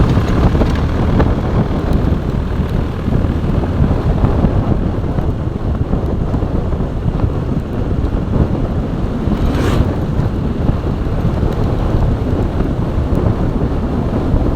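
Wind buffeting the microphone: a loud, steady low rumble, with a brief hiss about ten seconds in.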